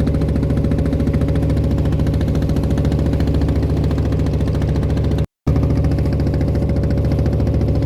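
Klotok boat's single-cylinder diesel engine running steadily with a fast, even pulse. It cuts out completely for a split second about five seconds in.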